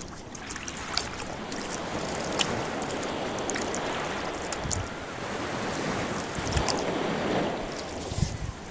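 Sea waves washing and lapping in slow swells, with small splashes and light water clicks.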